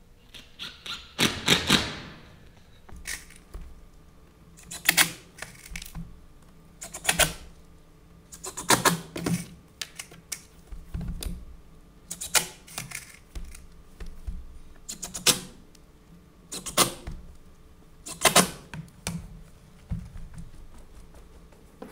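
Cordless driver running screws through masonite sheets into the stage sub-floor: about ten short bursts of rapid clicking, one every one to two seconds.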